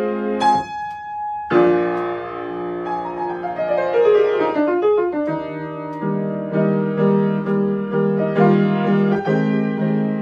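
Grand piano played with both hands: held chords, a descending run of notes a few seconds in, then chords repeated about twice a second.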